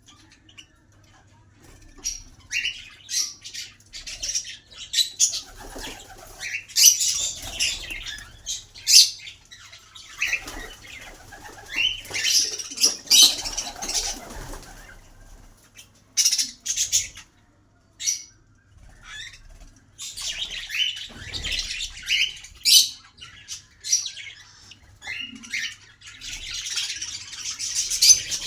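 Small pet birds chirping and chattering in quick high-pitched bursts, with wing flapping among them.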